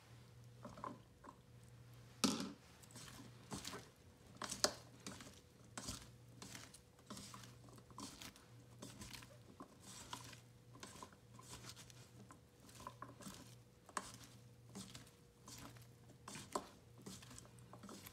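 A hand mixing sliced bitter melon in a dry spice-and-cornflour marinade in a stainless steel pot: soft, irregular rustling and patter of the coated pieces, with a few sharper knocks against the pot, the loudest about two and four and a half seconds in. A faint steady hum sits underneath.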